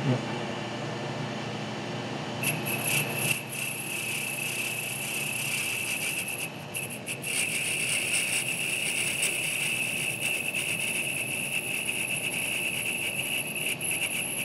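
Boring bar on a milling machine cutting a drilled hole in 954 bronze out to size. The spindle runs, and about two and a half seconds in a steady high-pitched squeal starts as the tool cuts. The squeal drops out briefly near the middle and then carries on.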